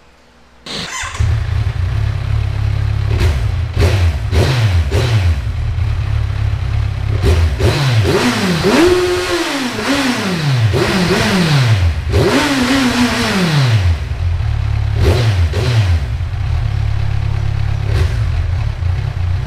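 Kawasaki Z1000 R Edition's 1043cc inline-four engine idling from about a second in, then revved several times in the middle, the revs climbing and dropping back, before settling to idle again with a couple of short blips of the throttle.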